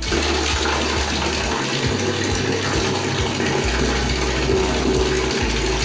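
Water turned on and running hard and steadily, starting suddenly right at the start.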